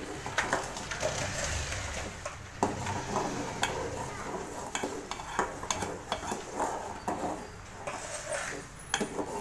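A metal spoon stirring and scraping through boiling water in an aluminium pot as semolina is poured in, with scattered clicks of the spoon against the pot.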